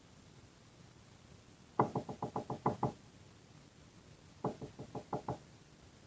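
Quick light taps on a freshly oil-filled RC truck shock body, in two runs: about eight taps, then about six. The tapping works air bubbles up out of the shock oil.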